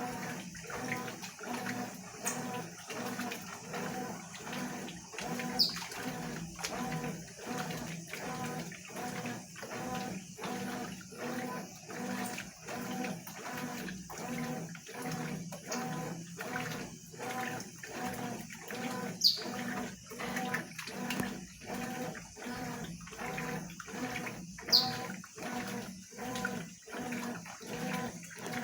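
Consul 12 kg top-loading washing machine agitating a blanket in the rinse cycle: water sloshing in a steady, even rhythm of strokes over the motor's hum. Three brief, sharp, high chirps stand out above it.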